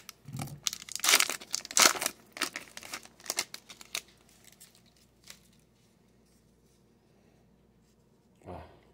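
Foil wrapper of a trading card pack crinkling and tearing as it is cut open with a pocketknife, in a run of crackly bursts over the first four seconds, then only faint handling of the cards.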